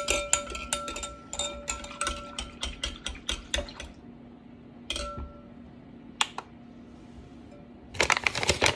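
A utensil stirring sourdough starter into warm water in a glass mixing bowl, clinking rapidly against the glass for about four seconds, then a couple of single taps. Near the end, a paper flour bag rustles.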